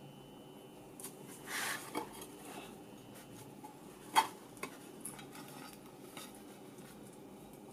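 Hands handling a metal gyro housing: a brief rustle and a few light metallic clicks and clinks, the sharpest about four seconds in, as the sawn-off end cover is worked free of the body.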